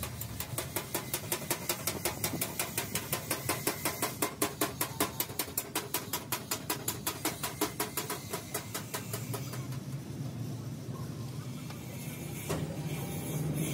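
An engine running with an even, rapid pulsing of about five beats a second, which fades out about ten seconds in, leaving a steady low hum.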